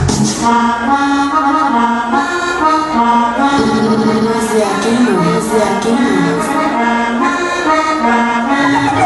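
Latin dance music played loud over a sonidero sound system: an accordion carries the melody in a break where the heavy bass beat drops out, and the beat comes back in at the very end.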